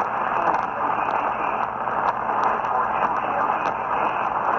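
Steady radio static: a hiss with frequent faint crackles and clicks, with no clear voice or tone coming through.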